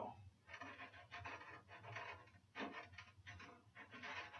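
Faint, irregular rubbing and scraping handling sounds.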